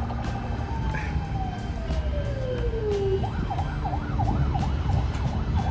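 Electronic emergency-vehicle siren changing patterns: one long falling wail, then a fast up-and-down warble about three times a second, over a steady rumble of street traffic.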